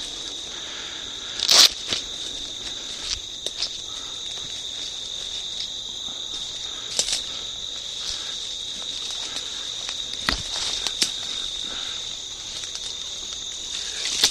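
A steady, high insect chorus runs throughout, with a few sharp clicks or snaps scattered through it.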